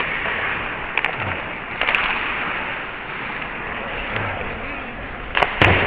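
Ice hockey play heard through a helmet camera: the steady hiss of skates on ice and air over the mic, with a few sharp clacks of stick and puck, the loudest pair near the end.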